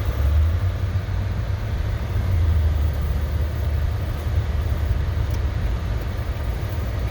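Strong blizzard wind buffeting the microphone: a heavy low rumble that swells in gusts, once about half a second in and again for about a second from two seconds in.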